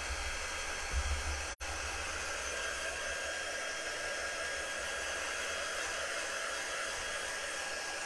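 Handheld craft heat tool blowing steadily over a freshly chalk-pasted wooden board to dry the paste, a steady rush of air with a faint high whine. The sound cuts out for an instant about one and a half seconds in.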